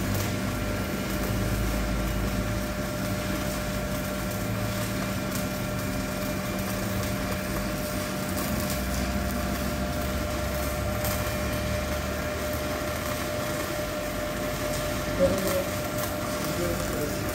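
Stick welding at about 200 A on a small ARC200 inverter welding machine: a steady machine hum with several held tones, a rumble and a faint crackle of the arc. There is a short louder sound about 15 seconds in.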